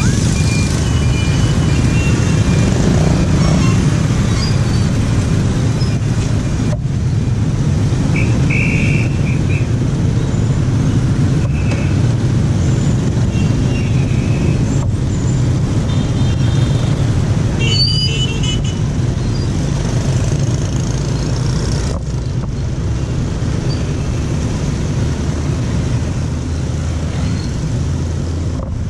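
Dense motorbike and car street traffic heard from within it: a steady rumble of engines and tyres, with a few short horn toots, one about eight seconds in and a cluster around seventeen seconds.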